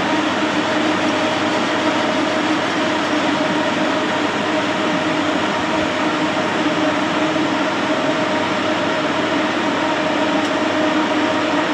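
Steady machine hum and hiss from a Haas VF-4SS CNC vertical mill as its spindle probe is jogged slowly down toward the workpiece, with a low drone that holds one pitch.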